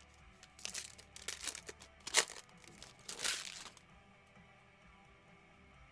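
A basketball trading-card pack's foil wrapper crinkling and tearing as it is ripped open by hand, in a string of crackly bursts lasting about three seconds.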